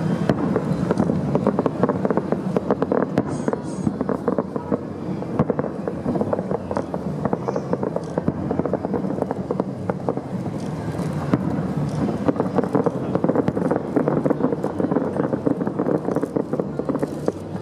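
Fireworks exploding in quick succession, a dense run of crackles and pops with no pause.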